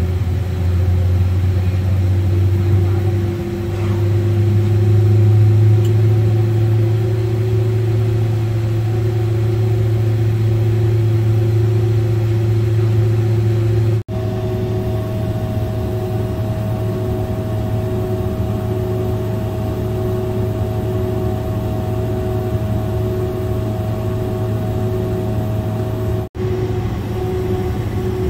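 Steady low drone inside the cabin of a Boeing 767-400 on the ground, with a steady hum tone above it. The sound cuts off abruptly about halfway through and again near the end, and after the first cut a higher steady tone joins the drone.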